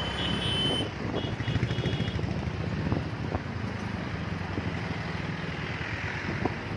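Vehicle engines running in a slow-moving traffic jam, a steady low rumble, with a few short high-pitched beeps in the first two seconds.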